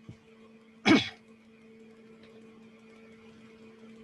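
A man clears his throat once, briefly, about a second in, over a faint steady hum.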